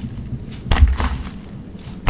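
Floam, slime packed with tiny foam beads, being squeezed and pressed by hand, giving off a crackling crunch that is loudest a little under a second in.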